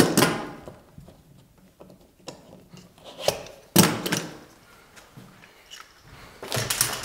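Bar clamps being released and pulled off a wooden door frame: a few sharp clicks, knocks and clatters, with a cluster near the end as they are gathered up.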